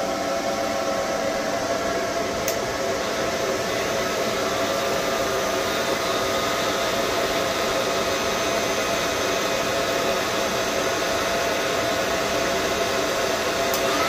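Cooling fans of EG4 6000XP inverters running flat out while the inverters carry about 100% load, close to overload: a steady, loud whoosh with a few steady tones in it, one of them slowly rising in pitch.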